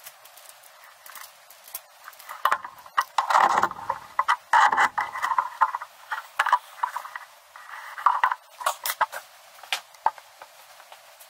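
Clicks and metal knocks from steel plates, a toggle clamp and a TIG torch being handled and set down on a steel welding table, busiest in the middle.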